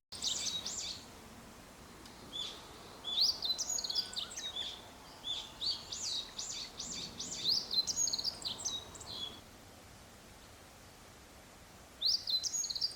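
Small songbirds singing: quick, high chirping phrases in bursts, with a pause of a couple of seconds near the end.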